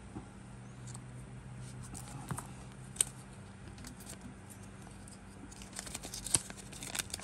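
Small plastic toy pieces being handled, giving light clicks and rustles, with a sharp click about three seconds in and a quicker run of clicks and rustling near the end.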